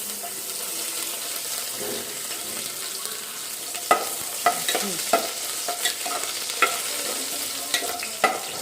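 Chopped garlic and ginger sizzling in hot oil with whole spices in a pressure cooker, with a steady hiss. From about four seconds in, a spoon stirring knocks and clinks against the metal pot several times.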